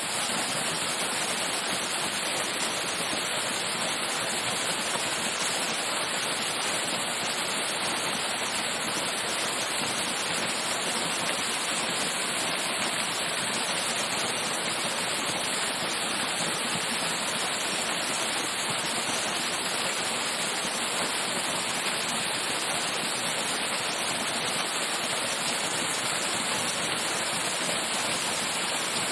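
Waterfall heard from its base: a steady, unbroken rush of falling water.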